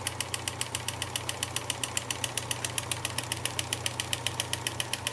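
Kenmore 158.1660 sewing machine running steadily, stitching a monogram through a monogrammer attachment: rapid, even needle strokes, about eight a second, over a steady motor hum.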